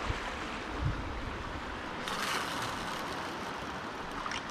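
Sea swell washing against shoreline rocks, a steady wash of water that surges louder about two seconds in.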